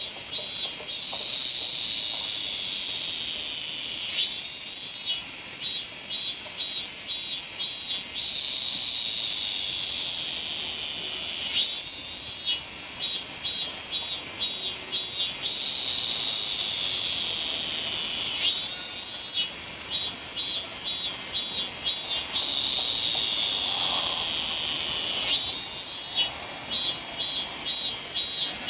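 Robust cicada (minmin-zemi, Hyalessa maculaticollis) singing: four phrases of pulsed "min-min-min" notes, each opening with a rising sweep and running for a few seconds at about two or three notes a second, repeating about every seven seconds over a continuous high-pitched buzz.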